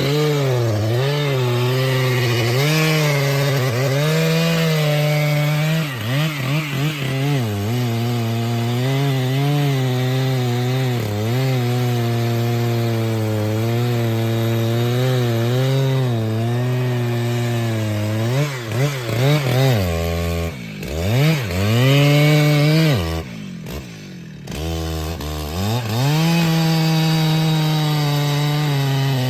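Chainsaw running at high revs while cutting through wood, its pitch wavering and sagging as the chain bites under load. About twenty seconds in, the engine drops off sharply twice and revs back up, then settles into steady cutting.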